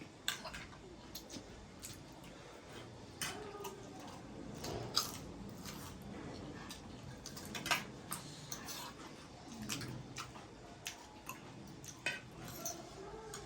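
A person eating noodles: soft chewing and wet mouth sounds, with scattered short sharp clicks.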